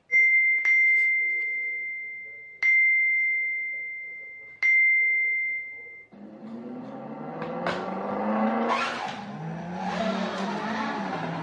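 Three electronic tones at the same high pitch from the lap counter's sound board, about two seconds apart, each struck sharply and fading: the start signal. At about six seconds they stop and a slot car starts running on the track, its electric motor whirring with a wavering pitch along with the rattle of the car in the slot.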